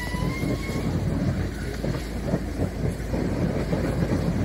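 A tractor fire burning: a steady low rumble of flames with many small irregular crackles.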